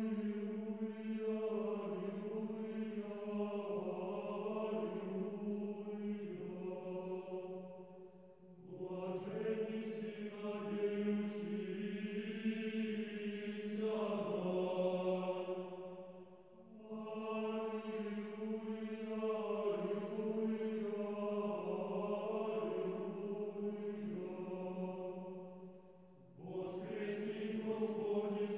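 Slow vocal chant sung in long held phrases, with three short breaks between phrases.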